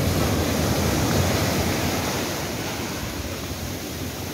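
Surf breaking and washing in the shallows around a beached fishing boat, a loud rush of foaming water that eases off after about two seconds.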